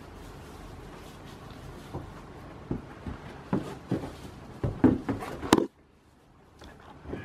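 Goats moving about in a hay-bedded wooden shed: rustling and a run of knocks and thumps from their hooves and bodies against the wooden walls and a rubber feed tub, loudest about five seconds in. After a sharp knock at about five and a half seconds it cuts off suddenly to near silence, and faint knocks come back near the end.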